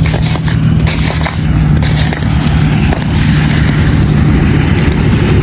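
Large hailstones pounding hard surfaces in a heavy, continuous din. Sharp cracking impacts are thickest in the first second and a half, over a steady low hum.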